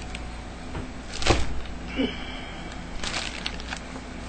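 A man sniffing shisha tobacco up close: several short sniffs, the strongest about a second in and a quick run of them near the end.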